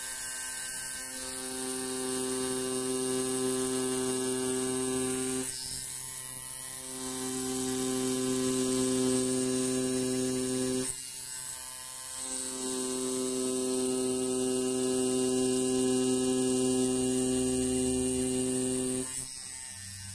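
Rotary tattoo machine running with a steady hum, stopping briefly twice and cutting off near the end.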